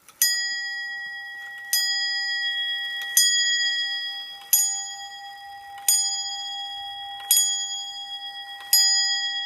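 An antique 1700s English tall clock's striking train hammering its bell seven times, about a second and a half apart, each blow ringing on under the next.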